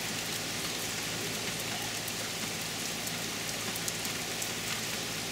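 Hard rain falling steadily: an even hiss with individual drops ticking close by.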